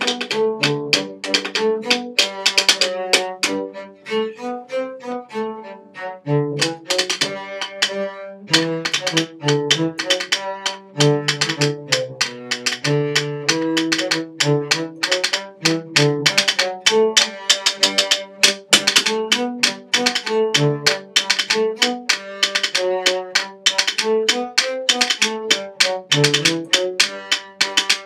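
Cello played with a bow in a lively tune, accompanied by fast drumming with sticks on a box.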